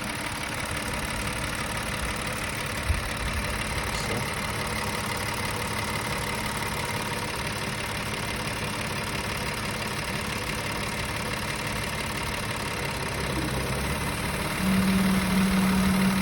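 Audi A6 C7's 2.8 FSI V6 (CHVA) engine idling with a knock from the engine that comes and goes. One sharp click about three seconds in, and a louder steady low hum joins near the end.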